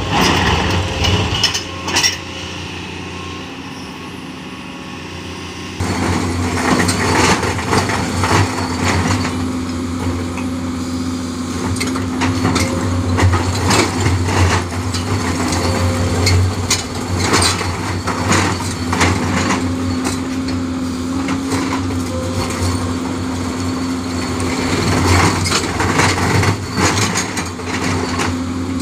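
Komatsu PC210 LC excavator's hydraulic rock breaker hammering rapidly on stone over the steady drone of its diesel engine. The hammering stops for a few seconds near the start, leaving only the engine, then resumes about six seconds in and keeps going.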